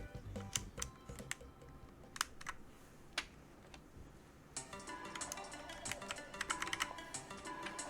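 Plastic keycaps clacking on a mechanical keyboard with brown switches as caps are pulled off and pressed onto the switches: a few scattered sharp clicks in the first three seconds, then a busier run of clicks from a little past halfway.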